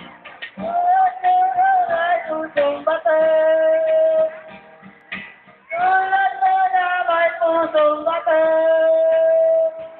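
A high voice singing two long held notes over music, with a slight waver in pitch and a short quieter break between them.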